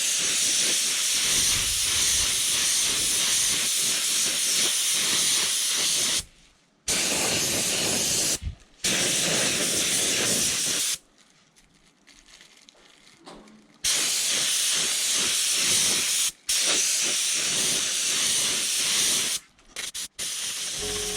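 Compressed-air paint spray gun hissing as it sprays clear coat. It is switched on and off in long passes, with several sudden stops, the longest pause lasting nearly three seconds.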